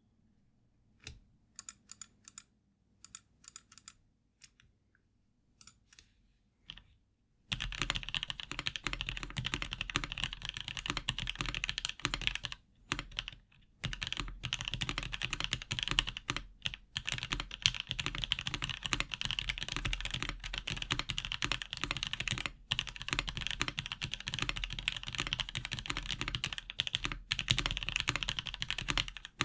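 Gasket-mounted Hello M0110 mechanical keyboard with lubed Box Cream switches, PBT keycaps and no plate or case foam, being typed on. It starts with a few scattered single keystrokes, then from about seven seconds in breaks into continuous fast typing with a couple of brief pauses.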